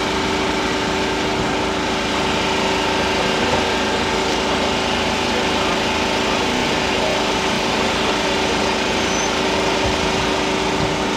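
A small engine running steadily at an unchanging pitch.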